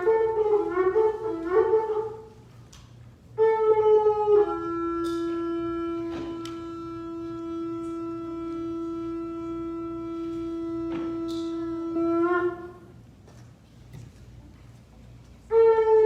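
Shofar blasts: a few short, wavering broken notes, then after a pause one long blast that starts higher, drops and holds a steady pitch for about eight seconds before turning up at the end. A new blast begins just before the end.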